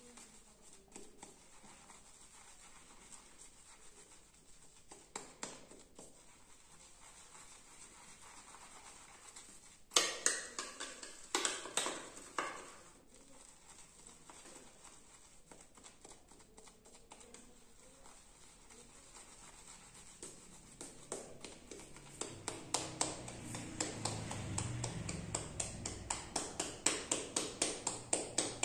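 Shaving brush lathering cream onto skin with soft bristle brushing. A few sharp knocks come about a third of the way through. From about two-thirds of the way through there is a quickening run of light taps, about three a second, as the brush works the cream in its cup.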